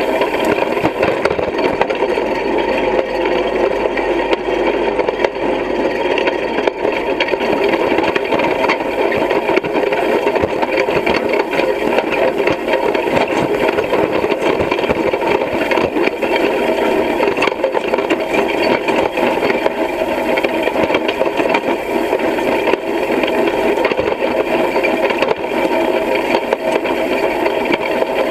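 Hay rake rattling steadily as it is towed through the field, its steel frame and tines clattering, with a tractor engine running underneath.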